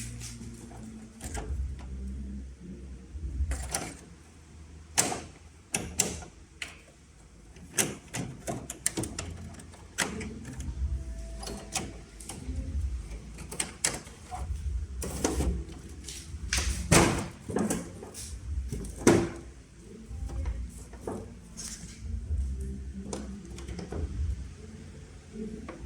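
Irregular knocks, clicks and rattles of objects being handled, a few of them sharp and loud, over an uneven low rumble.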